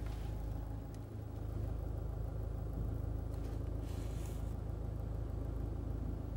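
Steady low hum of a diesel car idling, heard from inside the cabin.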